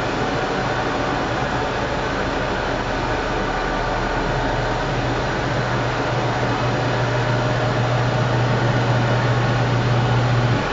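Sharp ES-KS70K-P washing machine running, with a steady rushing noise throughout. A low motor hum comes on about halfway through and cuts off near the end, as the washer's motor switches on and off during the cycle.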